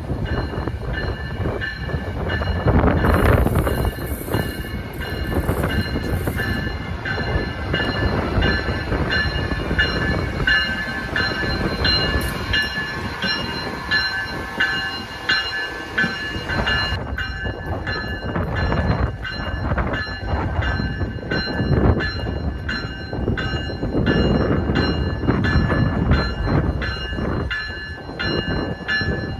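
Amtrak Siemens ACS-64 electric locomotive moving slowly past at close range: a steady rumble with a high, steady electrical whine, and from about halfway through a regular clicking of wheels over rail joints, about two a second.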